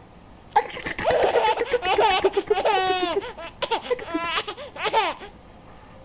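Infant laughing in a string of high-pitched bursts with pitch swooping up and down, starting about half a second in and stopping near the end.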